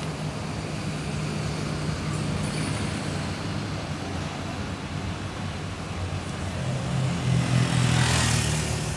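City road traffic: a steady car-engine hum with tyre and road noise, and a louder rush of passing-vehicle noise near the end.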